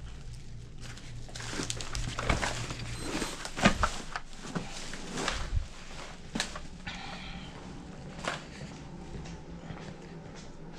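Scattered knocks, bumps and rustles from a book bag being handled and moved about, with a low steady hum that stops about three seconds in.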